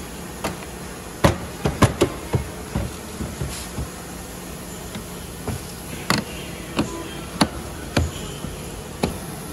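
Volkswagen Golf Mk7 plastic rear bumper cover being pressed and snapped onto its clips and brackets: a string of sharp, irregular clicks and knocks. The loudest come in a cluster between about one and two seconds in, with more spread through the rest.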